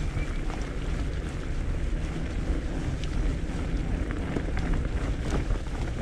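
Steady wind rush on the camera microphone over the low rumble of a fatbike's 4.6-inch 45NRTH Dillinger 5 tyres rolling on a leaf-covered dirt trail, with a few small clicks.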